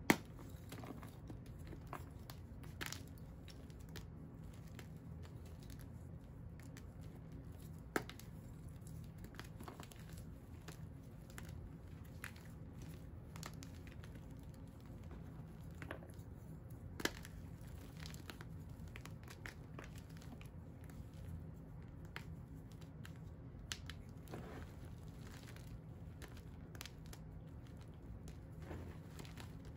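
Hands crushing and sifting through crumbled pink dyed-and-dried blocks and powder in a plastic tub: scattered soft crunches and crumbling, with a few sharper cracks, the loudest right at the start. A steady low hum runs underneath.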